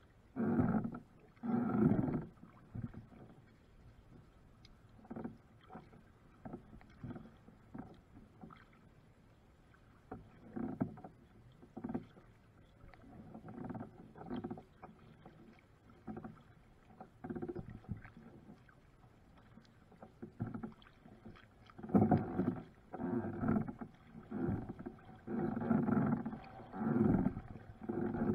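Kayak paddle strokes dipping and splashing in river water, in uneven runs: a couple of strokes at the start, scattered ones in the middle, then about one a second and louder from a little over two-thirds of the way in.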